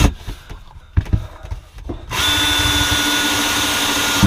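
Ryobi cordless drill driving a screw through a wooden board into a wall stud. The motor stops at the start, a couple of knocks follow, then it runs again steadily at one even pitch for about two seconds from about halfway in and stops near the end as the screw sinks in.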